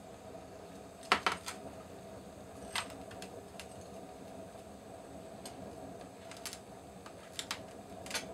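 Metal rods clinking against metal tools and pots, a handful of sharp clinks with the loudest cluster about a second in, over a steady low hum.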